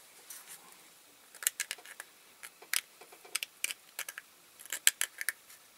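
Small scissors snipping: a quick, irregular run of sharp snips and clicks.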